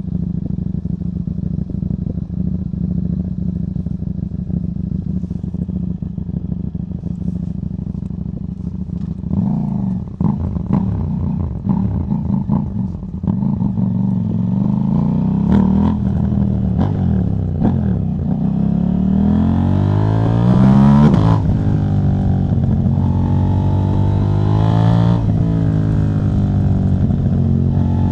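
KTM 790 Duke parallel-twin engine with the catalytic converter removed, running steadily at first. From about a third of the way in the revs climb and then drop sharply, as at gear changes, with a few short pops and clicks along the way.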